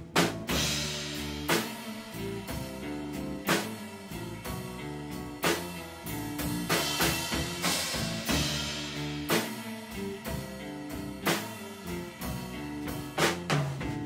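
Live band playing an instrumental passage between sung verses: a drum kit hitting over sustained bass and other pitched instruments.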